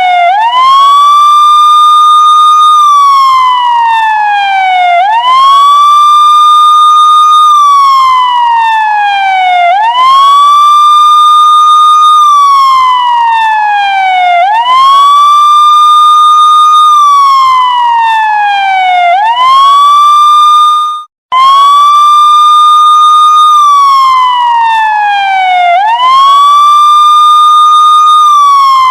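Police siren sounding a slow wail: the pitch sweeps up quickly, holds high for about two seconds, then slides down, repeating about every five seconds. About twenty seconds in it cuts out for a split second, then starts again.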